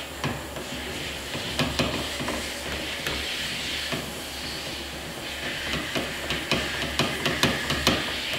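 Metal blast cap being hand-threaded onto a greased rifle barrel's muzzle threads: irregular light clicks and rubbing of metal on metal, coming thicker near the end, over a steady hiss and low hum.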